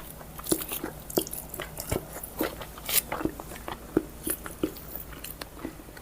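Close-up mouth sounds of a person eating rice and vegetable curries by hand: wet chewing with irregular smacks and small crunches.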